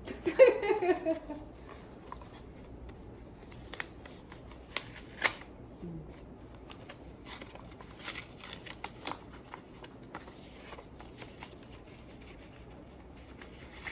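Paper and envelope being handled: crisp rustling with scattered sharp crinkles and taps, a few louder snaps about five seconds in. A short spoken remark at the very start.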